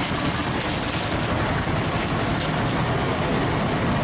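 Steady roadside background noise, mostly a continuous low traffic rumble, with no distinct event standing out.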